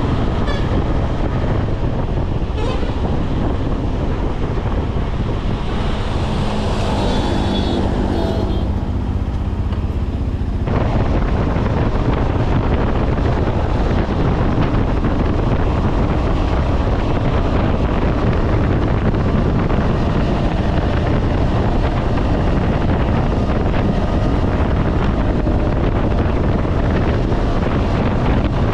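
Wind rushing over the microphone over a KTM 250 Adventure's single-cylinder engine running at highway speed. A vehicle horn sounds for a few seconds starting about six seconds in, and around eleven seconds in the wind and engine noise grow louder and brighter.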